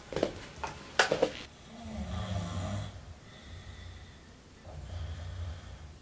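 A sleeping person snoring: two long, rough snores, about two and five seconds in. A few sharp clicks come about a second in.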